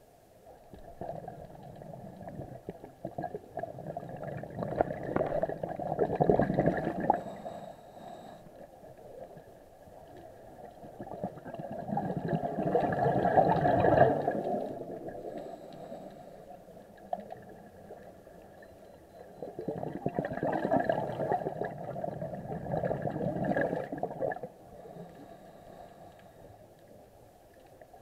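Scuba regulator exhaust bubbles from the diver's exhaled breaths, gurgling in three long bursts several seconds apart, the loudest about halfway through.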